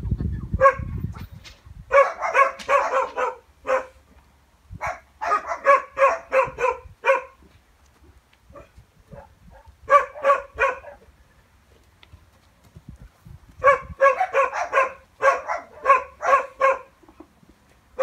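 A small dog yapping in quick runs of short, high-pitched barks, several barks close together in each run, four runs with pauses between.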